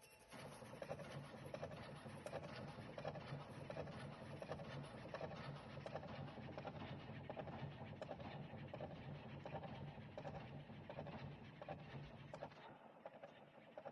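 Birlik Makine Slim E30 electric cigarette rolling machine running at speed setting 30: a fast, dense mechanical rattle over a steady motor hum, thinning a little near the end.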